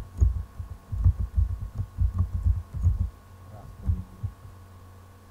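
Computer keyboard keystrokes picked up as dull low thuds, a quick irregular run of them for about three seconds and a few more around four seconds in, over a steady low hum.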